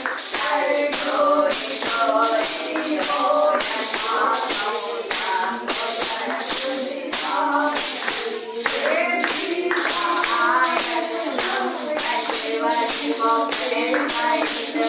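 Hindu devotional singing (bhajan) with jingling hand percussion keeping a steady beat.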